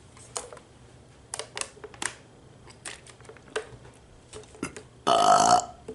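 A few faint scattered clicks, then a single short, loud burp about five seconds in.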